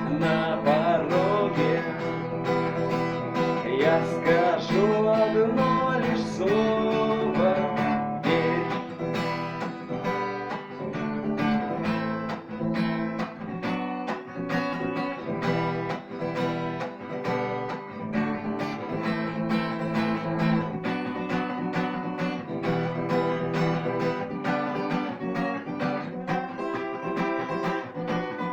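Acoustic guitar strummed in a steady rhythm, playing out the instrumental ending of the song. For the first eight seconds or so a wavering, wordless melody line sounds over the strumming.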